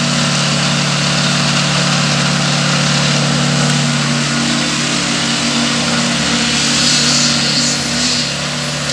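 A concrete mixer's engine running steadily, with its pitch stepping up a little about halfway through.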